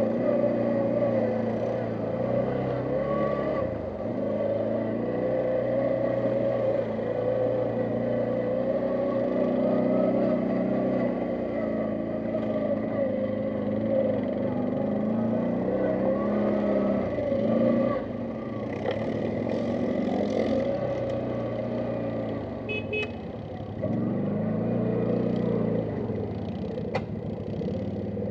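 ATV engine running under load, revving up and down as the quad works along a muddy trail, with a sharp knock near the end.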